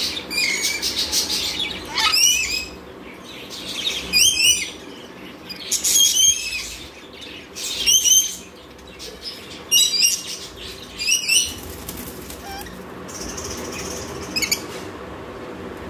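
Rainbow lorikeets giving short, shrill screeching calls with quick up-and-down sweeps in pitch, a burst roughly every two seconds.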